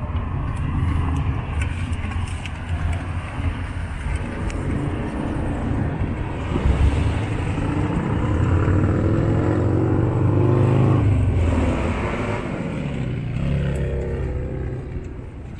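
Street traffic: motor vehicles passing close by, their engine notes shifting in pitch as they go, loudest about ten seconds in.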